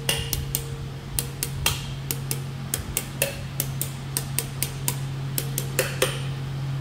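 Hammer tapping the tops of the valve spring retainers on a 6-litre L98 V8's cylinder head: a quick run of light, sharp metallic taps, about three to four a second, some briefly ringing, to make sure the valve collets are seated.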